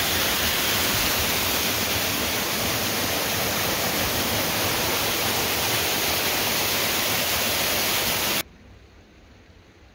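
Steady loud rushing of water, an even hiss with no distinct events, that cuts off suddenly near the end, leaving only a faint background.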